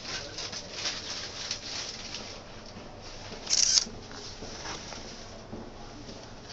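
Hands handling and fitting parts of a monitor stand base: light rustling and small clicks, then a short, loud scrape about three and a half seconds in.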